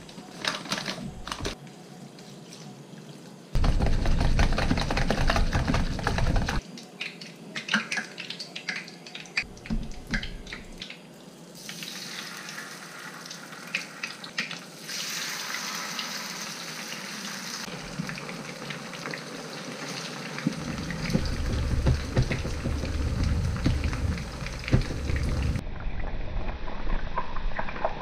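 Oil sizzling in a skillet as battered pan fish pieces fry, heard across several short edited clips, with a steady hiss that grows louder near the end as more pieces cook. The earlier clips hold kitchen handling noise while the breading is prepared, including one loud stretch a few seconds in.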